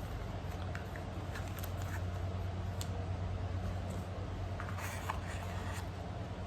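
Small objects being handled: scattered light clicks and taps, with a brief rustle about five seconds in, over a steady low hum.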